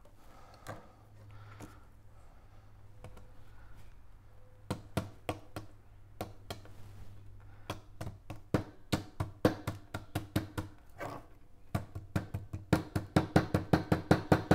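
Channel-lock pliers used as a hammer, tapping the twisted stainless steel wire down against the sunshade's rolled metal cylinder. Sharp taps start about five seconds in and come faster and louder toward the end, about four or five a second.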